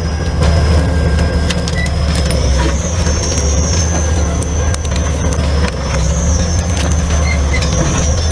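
Heavy stump-removal machine's engine running steadily under load, with a thin high whine that wavers up and down in pitch.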